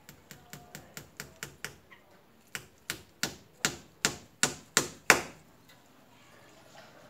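Hammer tapping a nail into a mango tree trunk: a run of light quick taps, then after a short pause about eight harder, slower blows, the last one the loudest.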